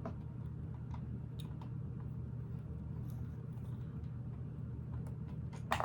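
Faint clicks and taps of plastic Lego pieces being handled and pressed onto a model, with a sharper click near the end, over a steady low background hum.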